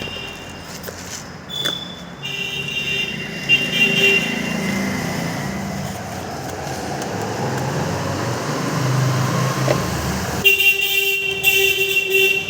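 Vehicle horns honking in road traffic: a long honk from about two seconds in, and another near the end. In between a vehicle engine runs and rises in pitch as it passes.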